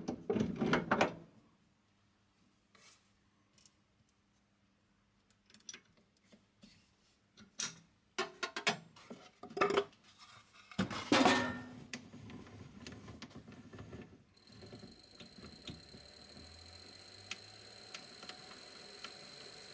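Metal clinks and knocks as a steel scroll chuck is handled and fitted onto a mini lathe's spindle flange, loudest about a second in and again around eleven seconds. From about fourteen seconds the lathe runs, spinning the chuck with a steady hum and a thin high whine.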